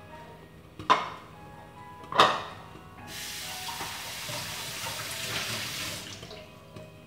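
Two sharp knocks, then a water tap running steadily into a sink for about three seconds before it is shut off.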